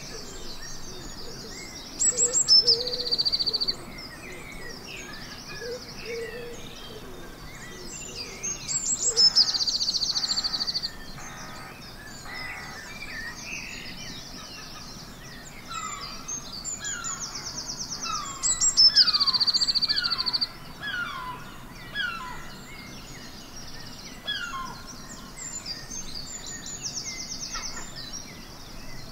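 Dawn chorus of wild songbirds: a loud, fast trilling song rings out four times, several seconds apart, over many quieter birds whistling and chirping. A low repeated call sounds in the first few seconds.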